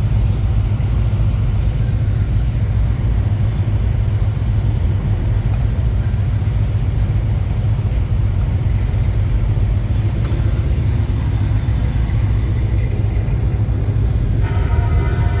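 A car driving at a steady cruise: a constant low engine and road rumble, unchanging throughout.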